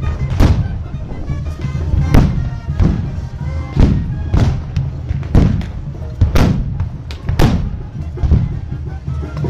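Black-powder muskets firing blank charges one after another, roughly one sharp bang a second, each with a short echo, over band music.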